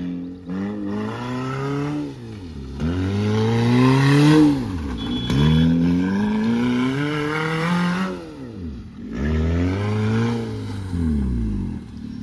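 Chevrolet Beat front-wheel-drive hatchback's engine revving hard up and down, about four times, as it spins donuts on loose dirt.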